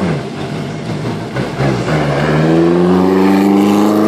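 A classic rally car's engine revving and pulling away. Its pitch rises steadily and it gets louder from about halfway through.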